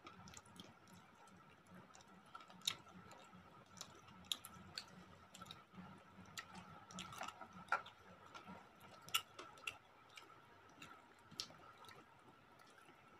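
Faint eating sounds: chewing and mouth clicks, with fingers squishing rice and curry on a plate, as scattered small irregular clicks and soft wet noises. A faint steady tone runs underneath.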